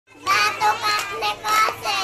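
A young child singing in a high voice, starting a moment in.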